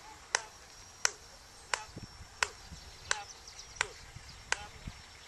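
Sharp hand claps at an even pace, about three every two seconds, seven in all, keeping a steady rhythm.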